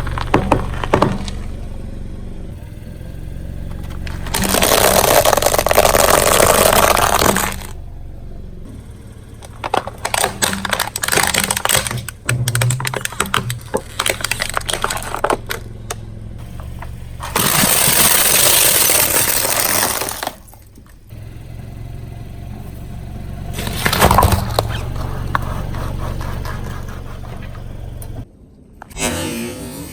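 A car running slowly while its tyres roll over and crush objects: a steady low engine hum under crackling, crunching and breaking sounds, with three louder noisy stretches of a few seconds each.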